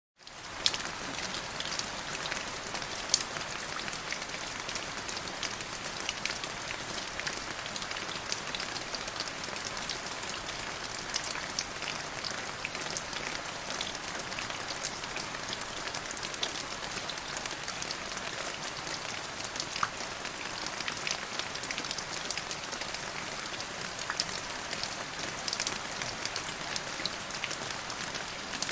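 Steady rain falling, with many separate drops ticking through the even hiss. It comes back in quickly right at the start after a brief silence.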